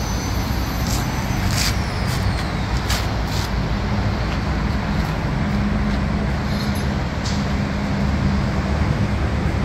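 Steady rumble of motor vehicles, with a few short sharp clicks in the first few seconds.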